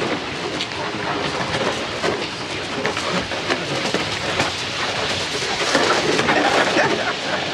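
Wicker toboggan on wooden runners sliding fast down a wet tarmac street: a steady, rough grating rumble of the runners on the road.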